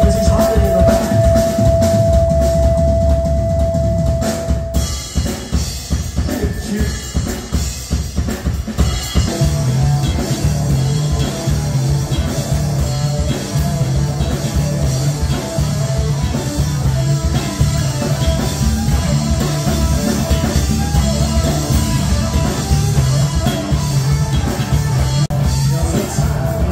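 Live rock band playing, with the drum kit's kick and snare to the fore and a single held high note over the first few seconds. From about nine seconds in, an electric bass line joins with a steady repeating pattern under the drums and guitar.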